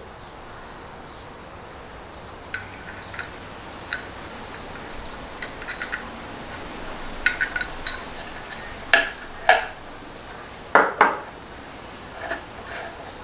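Hand tools and small metal parts being handled during light-fixture installation: scattered sharp metallic clicks and clinks, a few at a time, with the loudest knocks in the second half.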